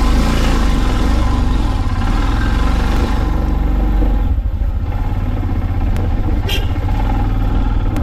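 Royal Enfield Himalayan's 411 cc single-cylinder engine running steadily as the motorcycle pulls away at low speed, heard from the rider's seat. A short high chirp sounds about six and a half seconds in.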